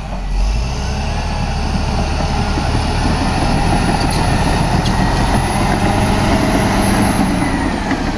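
Caterpillar D7R crawler bulldozer's diesel engine running steadily under load as the dozer pushes a blade-load of earth.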